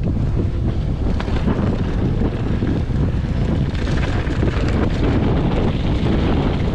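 Heavy wind buffeting on the microphone of a mountain bike ride, over the steady rumble of tyres rolling along a dirt and rocky singletrack.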